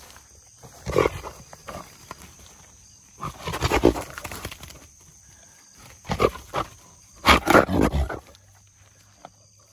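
Trapped wild boar hog growling and huffing in four loud, rough bursts, each up to about a second long.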